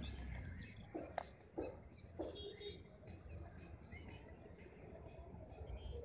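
Faint outdoor ambience of small birds chirping, with a few short lower calls and one sharp click in the first couple of seconds, over a low rumble.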